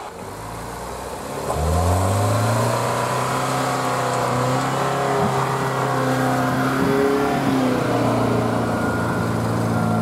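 GAZ Sobol 4x4 van engine revving up about a second and a half in, then held at high revs under load, the pitch rising and dipping, as the van pulls a stuck van out of a forest rut on a tow strap.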